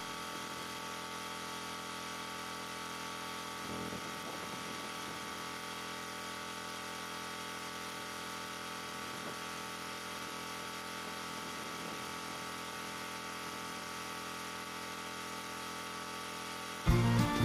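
A steady electrical hum holding several fixed tones over a constant hiss.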